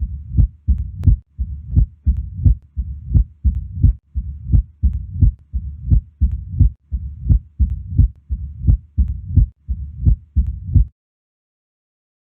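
Heart sounds heard through a stethoscope: a regular low thudding, about two beats a second, with a low rumble filling the gaps between beats. It stops abruptly near the end.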